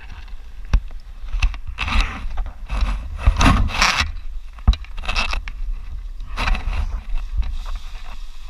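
Nylon parachute canopy and lines rustling and crinkling in several bursts as they are gathered up by hand, over a steady low rumble.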